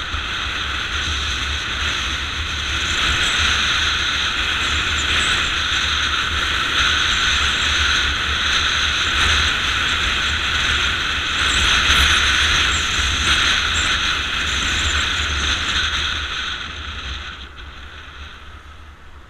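Motorcycle riding at speed, wind rushing over the camera with the engine running underneath as a steady noise. The sound falls away near the end as the bike slows.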